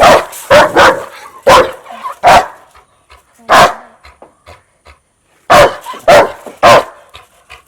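Rottweiler barking loudly in short sharp barks: a quick run of them, a single bark after a short gap, then a pause of about two seconds and three more in quick succession near the end.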